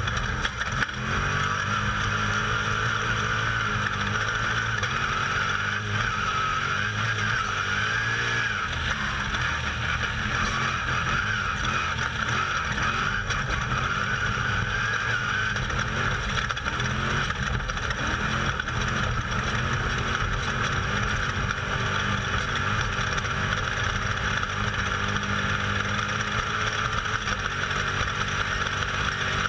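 Off-road race vehicle's engine running hard from onboard, its note rising and falling with the throttle, over a steady rushing noise.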